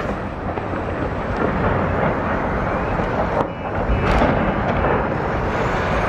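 Continuous rolling rumble of distant multiple-rocket-launcher (Uragan) shelling, the explosions merging into one long roar. It eases briefly about halfway and builds again.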